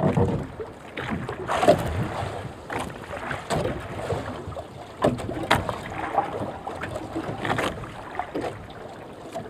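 Water sloshing around a small fishing boat, with irregular knocks and rustles as a handline is lifted by hand to check the bait.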